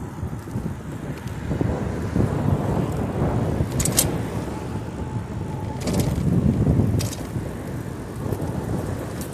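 Wind buffeting the microphone while riding a bicycle on a trail: a gusty low rumble, with a few sharp clicks about four, six and seven seconds in.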